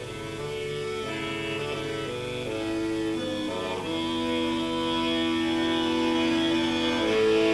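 Chromatic button accordion playing a slow passage of held notes and chords, the notes changing stepwise and growing steadily louder, with a new higher note entering near the end.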